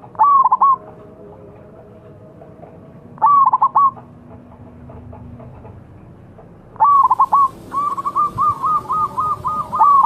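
Zebra dove (perkutut) cooing: two short phrases of quick staccato coos, then from about seven seconds in a longer run of rapid repeated coos.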